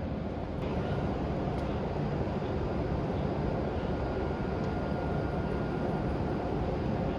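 E7/W7 series shinkansen train running slowly at the platform: a steady low rumble with a faint steady whine above it, growing slightly louder about a second in.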